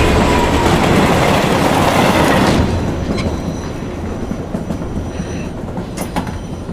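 A passenger train passing close at speed, a loud rush of wheels on the rails with a falling whine. About two and a half seconds in, the sound cuts to a quieter, steady rumble of the train heard from inside a carriage, with a few light clicks.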